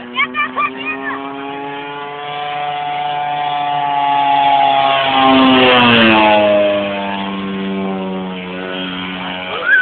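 Engine and homemade propeller of a 28% Extra radio-controlled model airplane flying past overhead. The steady drone climbs gradually, is loudest about five to six seconds in, then drops sharply in pitch as the plane passes and runs on lower.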